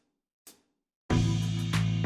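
A last count-in click at 96 bpm, then a neo-classical A harmonic minor backing track comes in about a second in, with drum kit and sustained low chords.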